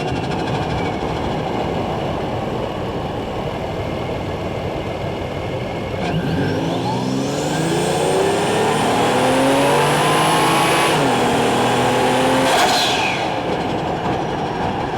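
Toyota Chaser's turbocharged 1JZ-GTE inline-six running steadily, then accelerating from about six seconds in, its note and a high turbo whistle rising together. The whistle cuts off sharply as the throttle is lifted, and a short rushing release of boost from the blow-off valve follows near the end.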